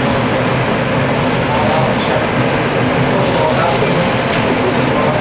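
Steady cooking noise at the stove, an even hum and hiss under faint voices.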